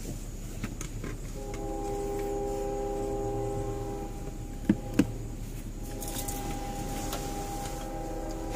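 Locomotive multi-chime air horn sounding two long blasts in a chord of several steady notes, the second beginning just under two seconds after the first ends. Two sharp knocks come between the blasts.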